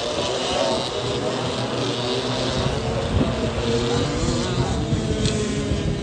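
A pack of racing dirt karts' small two-stroke engines buzzing together as they lap the track, several engine pitches overlapping and drifting up and down.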